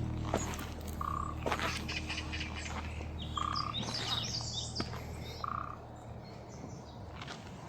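Wild calls in the woods: a short buzzy call repeats about every two seconds, with higher bird chirps in the middle, scattered footstep clicks, and low music fading out in the first half.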